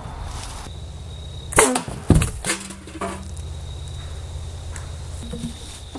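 A dented metal paint can, pierced through by a dart, being handled, with two sharp clanks about one and a half and two seconds in and a couple of lighter knocks after them. A steady low hum runs underneath.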